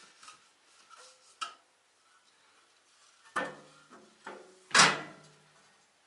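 A few sharp knocks and clanks of hard objects being handled. The loudest comes about five seconds in and rings on briefly.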